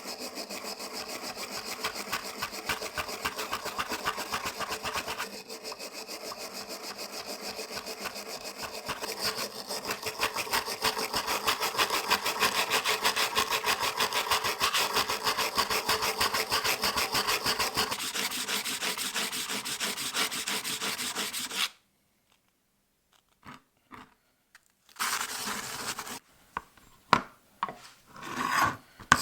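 Rapid, even back-and-forth scraping strokes of a hand tool worked against a surface. They run without pause for about twenty seconds, then stop suddenly. A few short scrapes come near the end.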